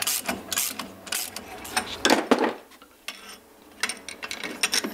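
Irregular metallic clicks and clinks of a hand tool working on the centre bolt of a Polaris RZR's CVT drive clutch, undoing it from the crankshaft, with a short quiet pause about two and a half seconds in.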